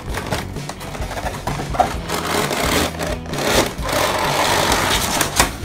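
A cardboard toy box being handled and opened, with plastic wrapping inside crinkling and rustling and the cardboard scraping and tapping. The rustling is densest from about two seconds in until near the end.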